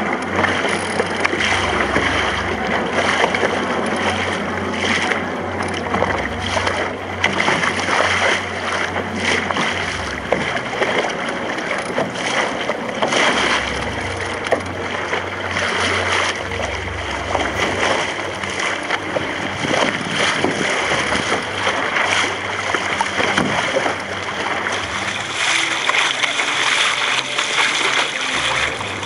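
Water splashing and rushing along the hull of a small sailing dinghy driving through choppy waves, in irregular slaps, with wind gusting on the microphone.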